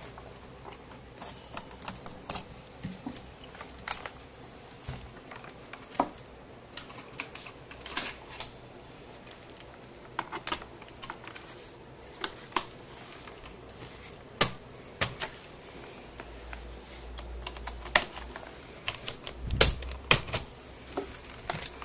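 Scattered, irregular clicks and taps of hard plastic and small parts as a laptop's casing is handled and worked on during disassembly.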